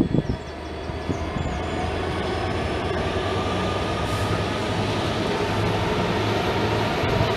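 Freight train passing: a pair of Class 66 diesel locomotives running with a steady drone while the flat wagons roll along the rails, the sound growing slightly louder after the first second.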